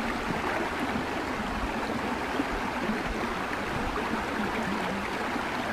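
Shallow, clear rocky stream running over stones, a steady babbling flow.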